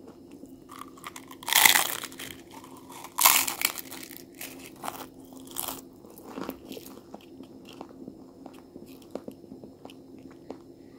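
Bites into a giant rolled Taki-style tortilla chip: two loud crunches about one and a half and three seconds in, then crunchy chewing with small crackles.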